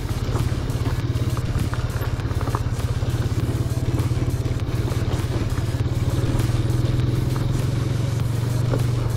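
Motorcycle engine running steadily while riding an off-road trail, with a few light knocks and rattles.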